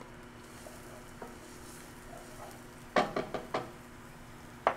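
Chopped red onion sizzling faintly in oil in a skillet, with a few sharp knocks of a wooden spatula and glass bowl against the pan about three seconds in and once more near the end.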